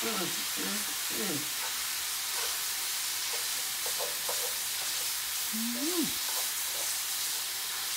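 Ground beef and chorizo sizzling as they brown in a skillet, with a fork scraping and stirring through the meat in the pan.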